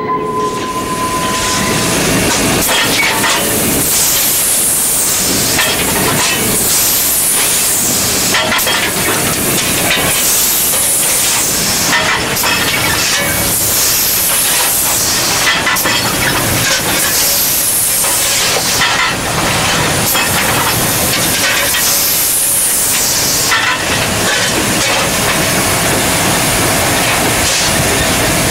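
Cab noise of the 2-8-0 steam locomotive No. 40 running: a steady hiss of steam over the rumble and clatter of the engine underway, with surges of hiss that swell and fade every couple of seconds.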